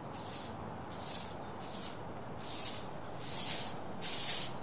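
A broom sweeping the ground in steady strokes: a scratchy swish about every three-quarters of a second, six in all.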